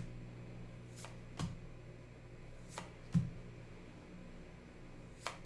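Yu-Gi-Oh trading cards being handled, a handful of light sharp clicks and taps spread out as cards are moved, over a low steady hum.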